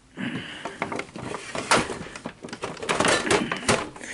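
Handling noise around a Betamax VCR on the workbench, as it is unplugged and moved: a run of clicks and knocks, with a short scraping sound at the start.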